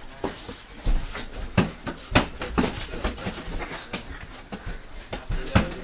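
Boxing gloves landing punches during sparring: a string of sharp smacks at uneven intervals, about eight strong ones.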